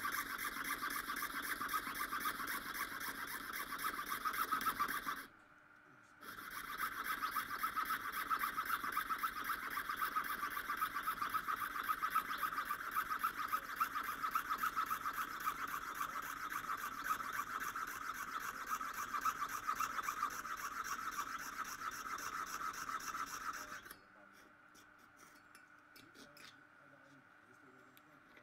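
Jeweller's piercing saw cutting through mother-of-pearl shell on a bench pin, in fast short strokes. It breaks off for about a second some five seconds in, resumes, and stops a few seconds before the end, leaving only a few faint ticks.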